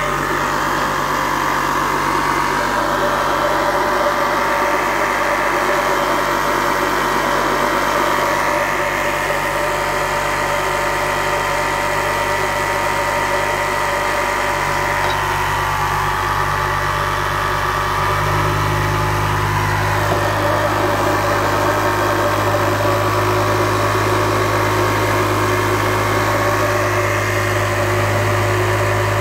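Live-steam model steam engine running fast and steady on 1 bar of steam, a dense mechanical whir. A low hum grows louder about two-thirds of the way through.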